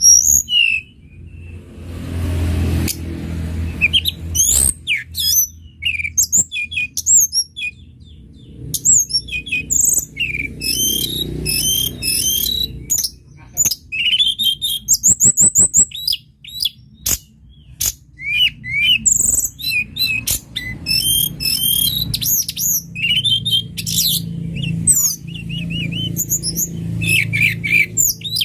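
Tledekan gunung (white-browed shortwing) singing a rapid, varied song of high chirps and whistled notes, with a fast trill of repeated notes about halfway through, over a low background rumble.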